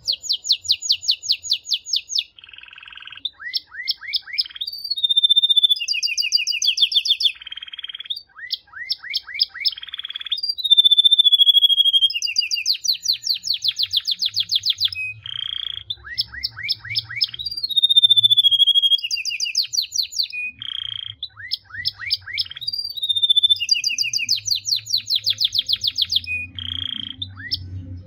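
Male domestic canary singing a long, continuous song of rapid trills, broken every few seconds by a short held whistled note.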